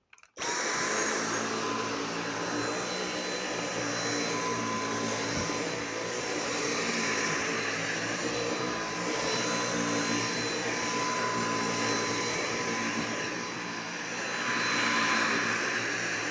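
Dyson V8 Animal Extra cordless stick vacuum cleaner running steadily: a rush of air with a thin high motor whine over it. It comes in abruptly just after the start.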